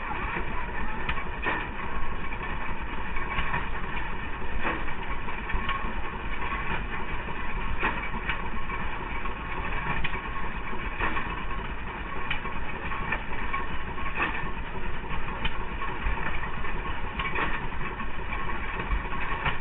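An engine running steadily, with sharp knocks coming about once a second at uneven intervals.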